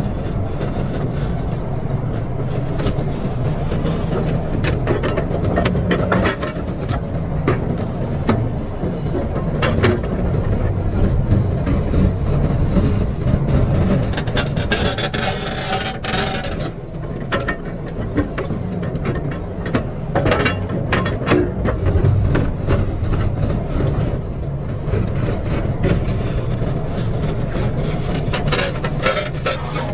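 Excavator's diesel engine running steadily while the machine works, with repeated metallic clanks, knocks and scraping from the bucket and tracks. There is a stretch of harsher scraping around the middle.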